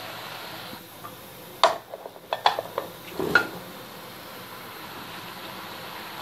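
A wooden spatula and other kitchen utensils clattering against a metal cooking pot, with a handful of sharp knocks between about one and a half and three and a half seconds in, over a steady background hiss.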